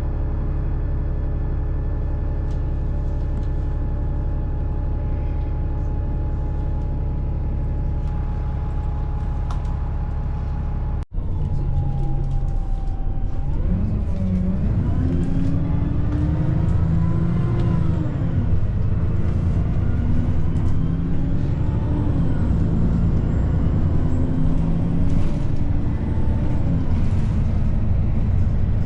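Bus engine running steadily from inside the bus. After an abrupt cut about eleven seconds in, the engine note rises and falls every few seconds as the bus drives on.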